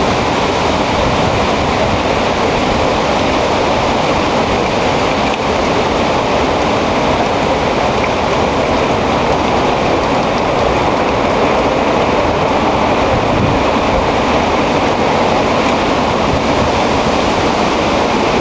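Hurricane wind blowing steadily and loudly through the trees, rushing and buffeting against the microphone without a break.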